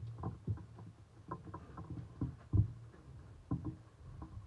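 Irregular light knocks and taps with a few louder thuds, from dough and a plastic sheet being handled and pressed on a kitchen counter.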